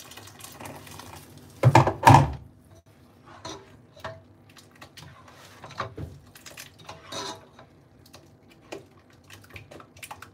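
Water pouring into a saucepan of soup, then a metal spoon stirring and scraping in the pot. There are two loud knocks about two seconds in and scattered clinks after.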